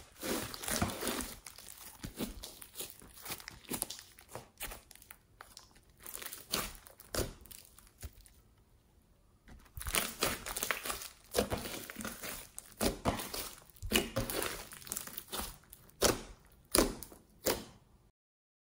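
Hands squeezing, stretching and poking a thick mass of slime with beads mixed in, giving an irregular run of sharp crackles and pops from trapped air and the slime pulling apart. There is a short quiet pause about halfway through.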